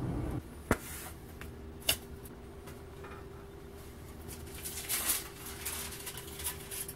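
Handling of a 3D-printed plastic part in a foil-lined metal roasting pan: a couple of sharp clicks in the first two seconds, then aluminium foil rustling and crinkling around five seconds in and again near the end, over a faint steady hum.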